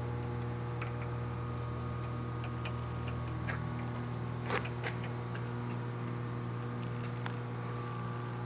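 Acer Ultima milling machine's 3 HP motor running with a steady electric hum, with a few light clicks and ticks scattered through, the loudest about halfway.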